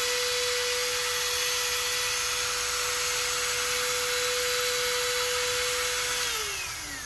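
Dremel 4300 rotary tool with a flex shaft attached, running at a steady speed with a single steady whine over motor hiss, on its newly replaced field assembly. About six seconds in it is switched off and the whine falls as the motor winds down.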